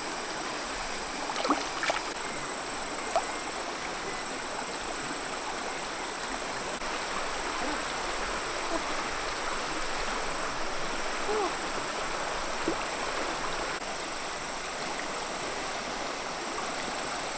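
Steady rush of flowing river water, with a few small splashes in the first few seconds.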